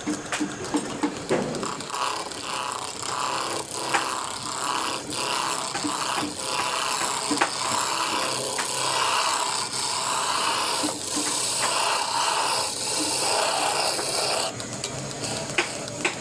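A hand tool rasping back and forth on wood in repeated strokes, roughly one a second, with a few sharp knocks at the start; the strokes stop near the end.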